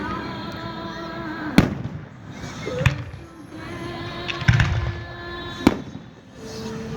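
Fireworks display shells bursting, four sharp bangs about a second or so apart, with music playing underneath.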